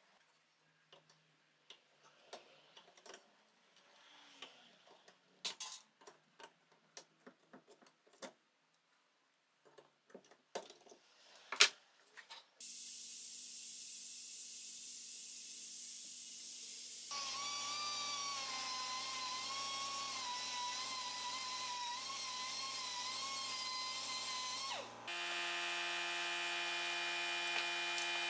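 Scattered clicks and knocks, then from about halfway a small electric power tool running steadily, its tone changing twice.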